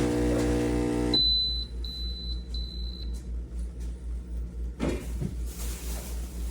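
Espresso machine's 20-bar pump humming as it pulls a double shot, cutting off about a second in, followed by three short high-pitched beeps signalling the end of the shot. A low pulsing hum continues underneath.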